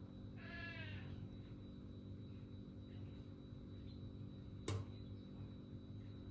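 A short cat meow about half a second in, over a steady low electrical hum, followed by a single sharp click a little before the end.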